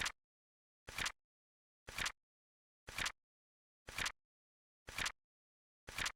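Flip clock sound effect: a short, sharp double clack of a flipping card once every second, seven in all, with dead silence between.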